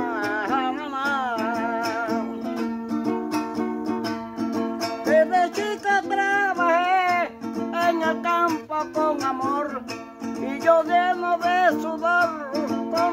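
Mejoranera, a small Panamanian five-string guitar, strummed steadily, with a man's voice singing a wavering, drawn-out melody over it.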